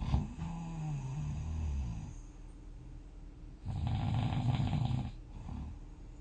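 A person snoring: two snores. The first carries a low tone that dips in pitch. The second, about four seconds in, is louder and rougher.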